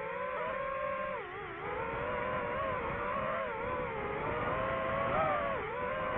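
DJI FPV drone's motors and propellers whining in flight. The pitch holds fairly steady, then dips and climbs back twice as the throttle changes.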